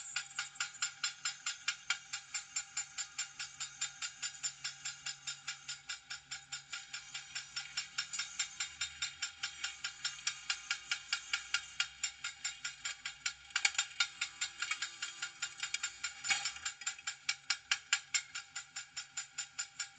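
Railway level-crossing warning bell ringing in quick, even strikes, about two and a half a second, the sign that the crossing is closed for an oncoming train.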